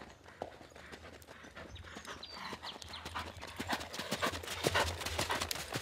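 Hoofbeats of a ridden Pure Spanish stallion moving briskly on a sand arena, a quick run of soft thuds that grows louder as the horse comes closer.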